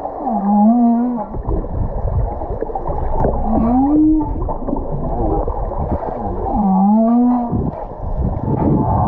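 Humpback whale vocalizing underwater: three low moans, each about a second long and about three seconds apart, each sliding up in pitch, over the rush and bubbling of water around the camera.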